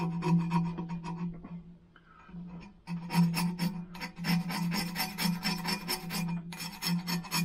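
Hand scraping and rubbing hardened exhaust sealant (Gun Gum) off the end of a scooter's exhaust pipe, in quick repeated rasping strokes. The strokes pause about a second and a half in and resume briskly about three seconds in.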